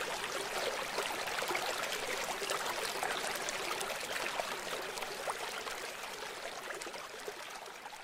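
Water of a stream flowing steadily, an even rushing with faint small splashes, slowly fading out over the last few seconds.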